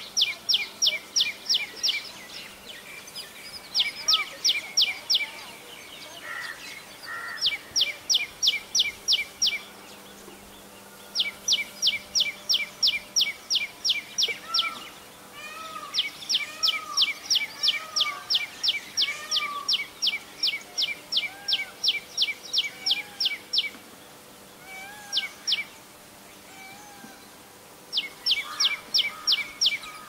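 Common tailorbird calling loudly: fast runs of sharp, repeated notes, about five a second, in bouts of one to eight seconds with short pauses between. Softer, lower chirps from another bird sound underneath.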